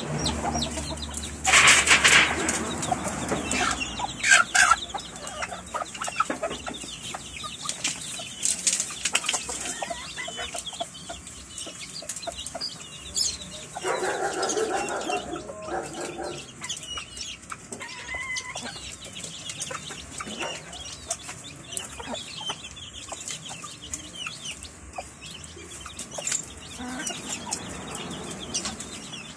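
Chickens clucking as they feed, hens with their chicks. There are a few loud, noisy bursts in the first few seconds.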